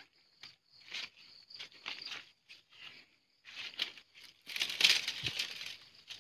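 Footsteps on a dirt path with dry twigs, stalks and grass rustling and crackling against the body as someone pushes through brush; a short irregular scuff every half second or so, then a denser, louder spell of crackling brush for about a second and a half starting about four and a half seconds in.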